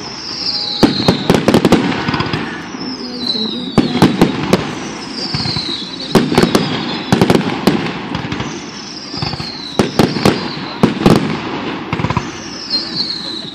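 Aerial fireworks going off in clusters of sharp bangs every couple of seconds. Between the bangs, a high whistle falls in pitch about every two and a half seconds.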